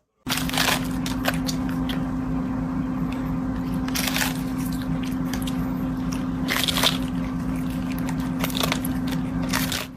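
Close, irregular crunching and chewing with a few louder crackles, over a steady low hum.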